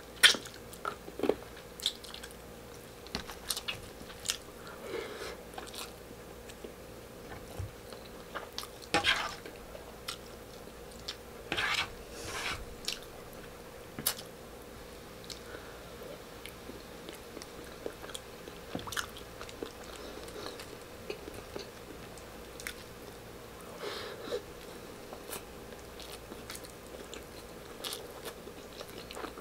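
Close-miked eating sounds of beef-bone kaldereta with rice: chewing, lip smacks and sucking meat off the bone, as scattered short wet clicks and smacks.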